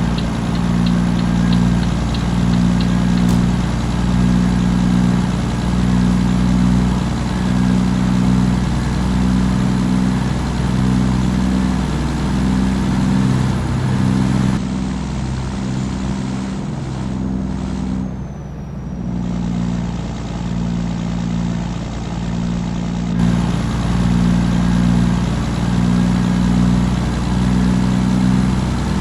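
Volvo FH truck's six-cylinder diesel engine rumbling at idle through a straight-through exhaust, its deep note swelling and fading in a slow, regular beat about once a second.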